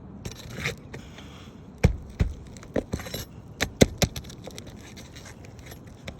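Hard objects clicking and knocking, with some scraping in between. About a dozen sharp knocks come in an irregular run, the loudest about two and four seconds in.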